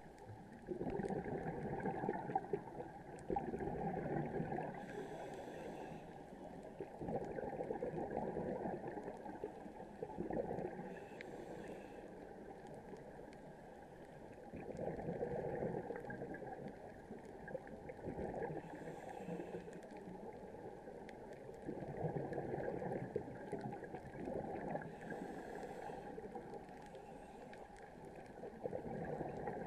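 A scuba diver's regulator breathing, recorded underwater: a short hiss on each inhale and a longer gurgling rush of exhaled bubbles, repeating about every six seconds.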